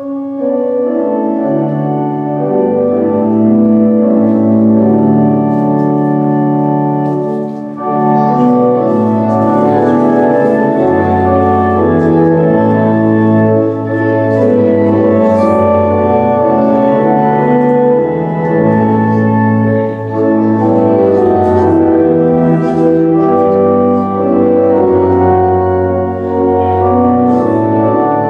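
Organ music in slow, sustained chords, coming in suddenly at the outset and playing on steadily.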